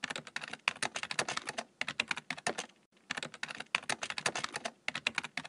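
Typing on a computer keyboard: quick runs of key clicks, broken by three short pauses.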